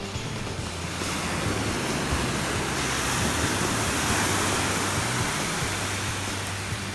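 Ocean surf washing up the beach: a wash of wave noise that swells over the first few seconds and eases off near the end.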